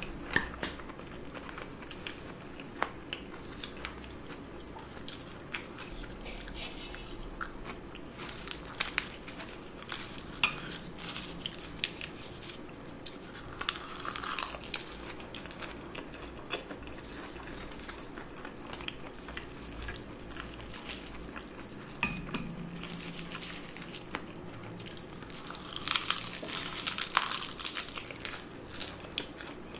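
Close-miked eating sounds of a person chewing rice with peeled soy-marinated and spicy marinated shrimp: wet chewing and mouth sounds with scattered sharp clicks, busiest in a stretch of bites and chewing near the end.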